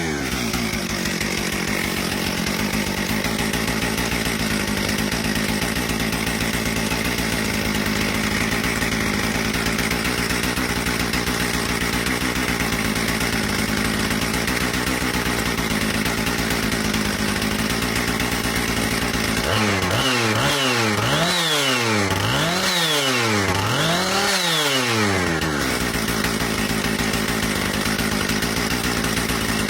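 Jonsered CS 2255 55cc two-stroke chainsaw running on fuel dosed with a capful of nitromethane, running steadily. About twenty seconds in it is revved up and down about four times in quick succession, then settles back. It still sounds like a normal chainsaw.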